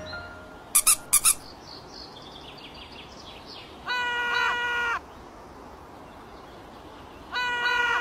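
Cartoon sound effects: four quick, sharp, high clicks about a second in, then a faint falling chirp. After that, twice, comes a held tone at a steady pitch lasting about a second.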